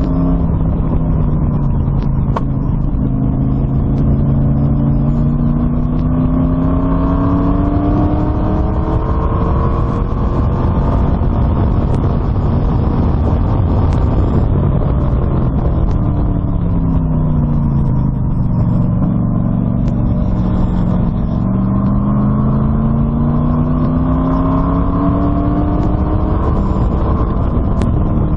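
LS1-swapped V8 engine of an Exocet kit car running, its pitch sinking for the first few seconds, then climbing slowly for about ten seconds, dropping again, and climbing again near the end, over a steady low rumble.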